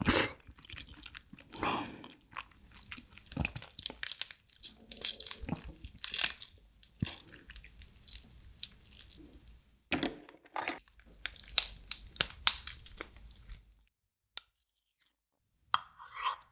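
Close-miked eating of soy-sauce marinated raw crab: irregular crunching and wet chewing as the crab body is bitten into, then wet squishing as the crab meat is squeezed out over rice. The sound drops out for a moment near the end before a short wet burst.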